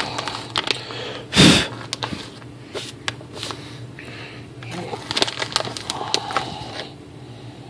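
Crinkling and crackling of a plastic snack bag of cookies being handled and opened, in irregular bursts, with one short, louder rush of noise about one and a half seconds in.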